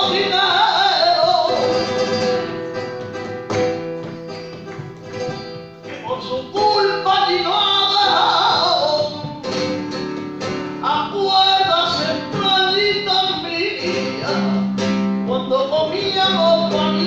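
A male flamenco singer's wavering, melismatic voice over a flamenco guitar playing bulerías, with sharp strummed chords between the sung phrases.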